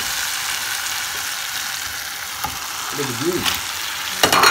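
Onion-and-spice masala frying in oil in a frying pan, with a steady sizzle as it is being sautéed down. A brief, louder burst of noise comes near the end.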